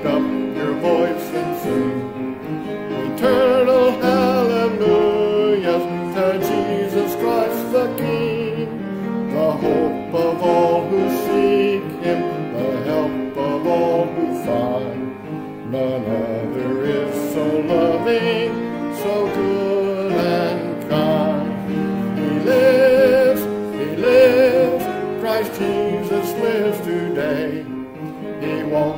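Voices singing a hymn with instrumental accompaniment, the sung notes held with vibrato.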